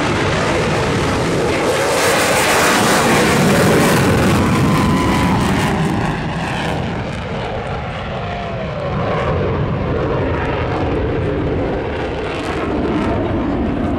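F-35B Lightning II jet taking off and climbing away in afterburner: a loud, rushing roar that peaks a few seconds in and eases off, with a ragged crackle through the second half.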